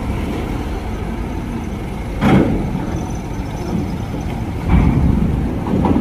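Diesel engine of a Scania K310IB coach running low as it creeps up the ferry's loading ramp, a steady rumble with a brief sharp noise about two seconds in and a louder stretch near the end.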